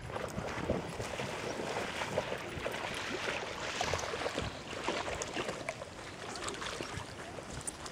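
Dogs splashing into a shallow pond and swimming: a jumble of short splashes over sloshing water.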